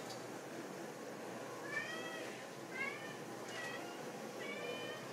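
Overweight domestic cat meowing four times in a row, one longer meow followed by three shorter ones, begging for a treat.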